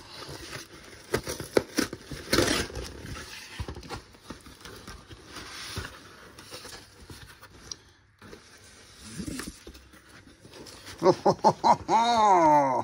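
Cardboard packaging and paper rustling and crinkling, with sharp crackles, as a sheet of vinyl decals is drawn out of its box. Near the end a loud drawn-out voice-like sound comes in, bending in pitch.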